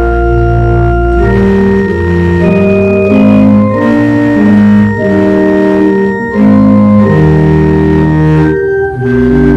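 Organ playing a slow piece: sustained chords over deep held bass notes, the harmony changing about every second.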